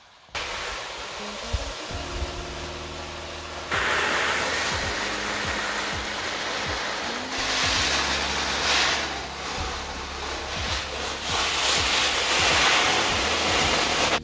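Water running and splashing, coming on suddenly and getting stronger about four seconds in, with its strength rising and falling; soft background music plays underneath.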